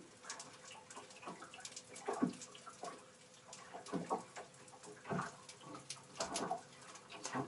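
Quiet, scattered knocks and clicks of hoses and a metal fitting being handled and shifted in a boat's seawater intake plumbing, with a faint water sound and a faint steady hum underneath.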